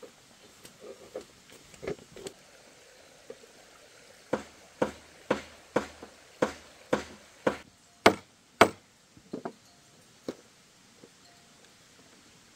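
A run of sharp knocks: a few light ones, then seven evenly spaced about two a second, two louder ones, and a few lighter taps.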